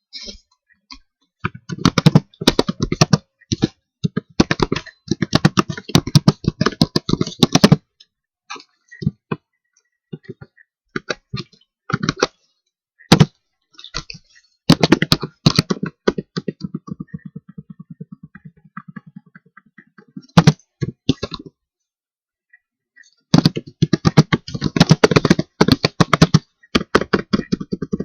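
Computer keyboard typing in quick bursts, with separate single clicks between the bursts.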